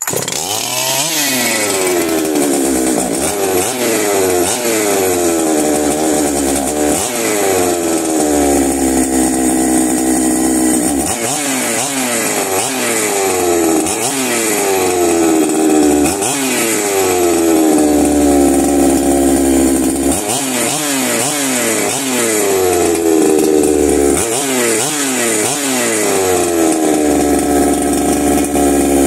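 Ported Holzfforma G372XP two-stroke chainsaw running on its first start, loud. It is blipped repeatedly on the throttle, each rev climbing sharply and then falling back slowly toward idle, every few seconds.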